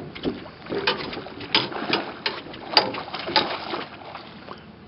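A hooked silver salmon thrashing at the surface right beside the boat: a run of sharp, irregular splashes that die away near the end.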